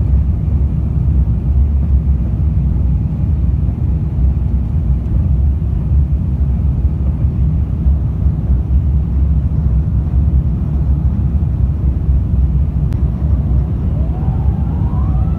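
Steady low rumble of a jet airliner's cabin noise, the engines and rushing air heard from a window seat over the wing. Near the end, music starts with tones that glide upward and then hold.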